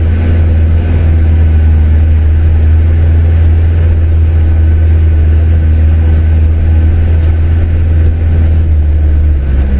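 Land Rover Defender engine running steadily as the 4x4 drives slowly along a dirt lane: a strong, steady low drone.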